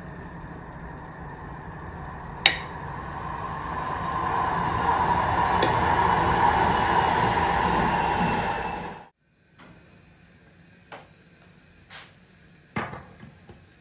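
A fork dragging through mashed-potato topping in a glass baking dish makes a continuous scraping that grows louder, over a steady low hum, with two sharp taps of the fork against the glass. It cuts off suddenly and is followed by a few light clinks as the glass dish is set down on a metal trivet.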